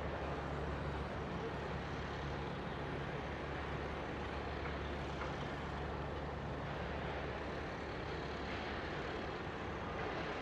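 Steady low machinery hum and rumble, unchanging throughout.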